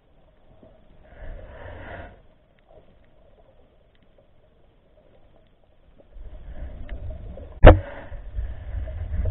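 Low rumbling handling noise from an underwater camera housing, heard through the water as the camera shifts over the sandy bottom, with one sharp loud knock about two thirds of the way through.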